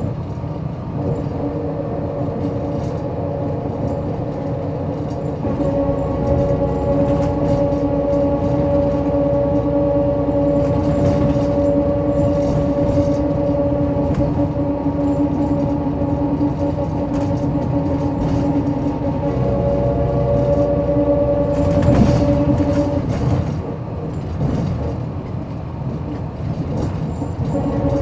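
MAN SL202 CNG city bus under way at a steady speed, its engine and driveline giving a steady hum over a low road rumble that grows louder about six seconds in. About 22 seconds in there is a loud rushing burst, after which the engine note drops away for a few seconds and picks up again near the end.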